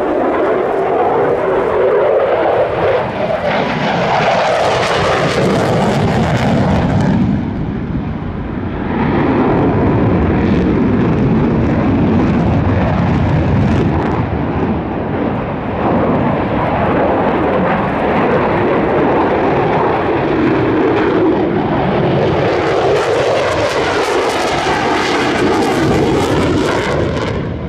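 An F-16 fighter's single afterburning turbofan jet engine during a low display pass: a loud, continuous jet roar with a sweeping, phasing rush. It swells into a harsher, hissier blast a few seconds in, and again near the end as the afterburner is lit in a hard turn.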